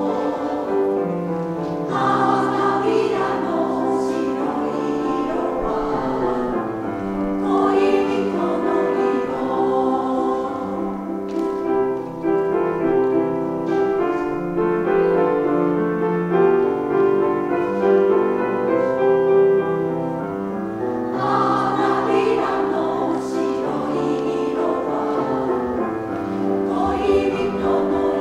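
Women's choir singing a slow Japanese song in parts, accompanied by a grand piano.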